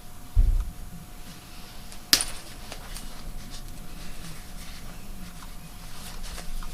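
Seam ripper cutting through the stitching of a coat's zipper seam: faint scattered ticks and fabric rustle, with a short low thump about half a second in and one sharp click about two seconds in.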